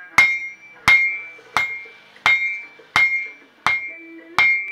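Blacksmith's hand hammer striking red-hot iron on an anvil while forging a farm tool. Seven even blows come about three every two seconds, each followed by a short ring from the anvil.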